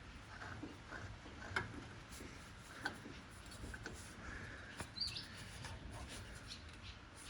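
Faint, scattered light clicks and knocks of hand tools and metal parts while the alternator is being worked loose on the tractor, with one short high-pitched chirp or squeak about five seconds in.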